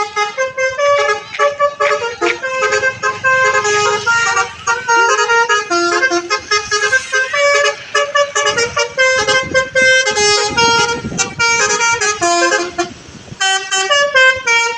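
Bus telolet horn, a multi-trumpet air horn, playing a fast melody of short notes that jump up and down in pitch, with a brief pause near the end before a few more notes.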